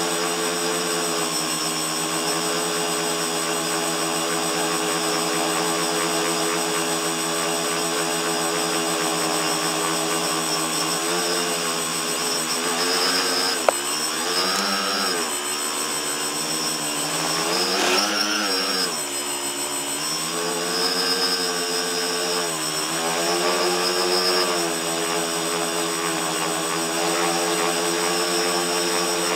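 Tricopter's three electric motors and propellers whining steadily, heard from the onboard camera, their pitch rising and falling several times as the motors speed up and slow down in flight. A single sharp click about halfway through.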